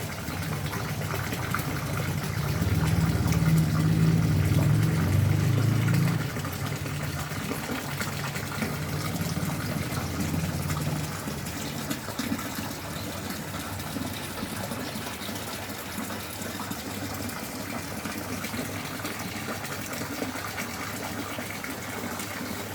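Steady rush of running water, louder for about the first six seconds, then settling to a lighter, even flow.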